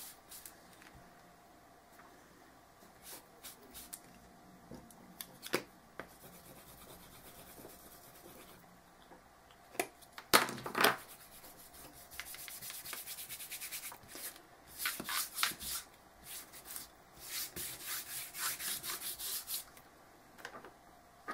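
Hands rubbing over a painted chipboard panel to blend in water-soluble crayon colour, a faint scratchy sound that comes in several bouts in the second half. A single knock about ten seconds in.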